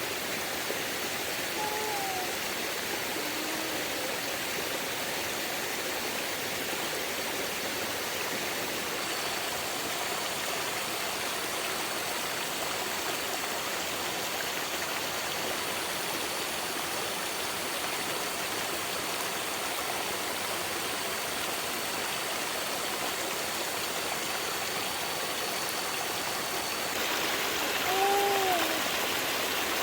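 Steady rushing of water, an even hiss with no breaks. A few short rising-and-falling calls cut through it a couple of seconds in and again near the end.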